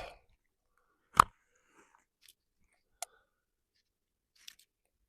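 Clicks of saddle-hunting climbing gear being handled: one loud, sharp clink with a brief ring about a second in, then three lighter clicks spread over the next few seconds.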